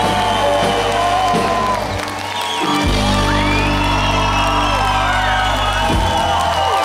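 Live band music with a steady bass line, and a crowd whooping and cheering over it; the bass drops out for about a second, two seconds in.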